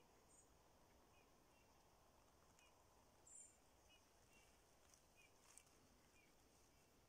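Near silence with faint, high bird chirps repeating irregularly about every half second, and a louder, higher chirp about three and a half seconds in.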